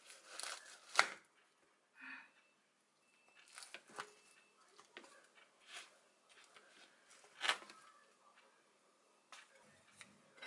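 Kitchen knife cutting through a roasted kabocha squash, its charred rind giving a sharp crunch with each cut and the blade knocking the dish. The cuts come as a handful of separate crunches a second or two apart.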